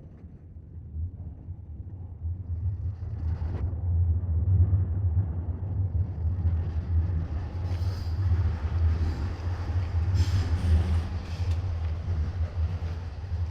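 A train approaching and passing: a low rumble that swells over the first few seconds and stays loud, with a rising hiss of wheels on rail joining it about halfway.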